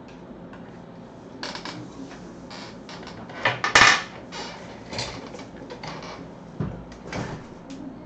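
Irregular clatter of knocks and rustles from objects being handled, the loudest about halfway through.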